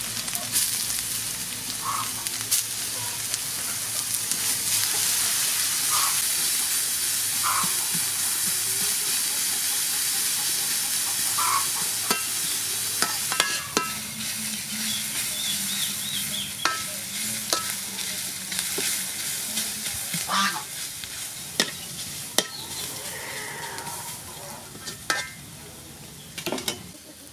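Julienned ginger and garlic sizzling in hot oil in an aluminium wok, stir-fried with a metal spatula that scrapes and knocks against the pan. The sizzle eases near the end.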